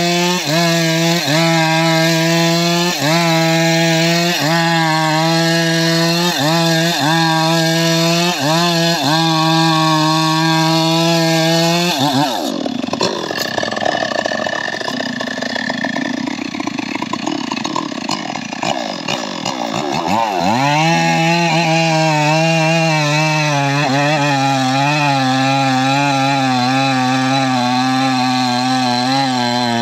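Chainsaw running at full throttle, cutting into the base of a large tree trunk, its pitch dipping slightly about once a second as the chain bites into the wood. About twelve seconds in it drops to a rougher, lower sound for several seconds, then revs back up and runs steady under load again.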